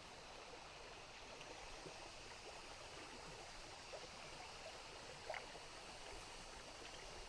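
A flowing stream, with a steady, faint rush of water and a couple of faint short sounds near the middle.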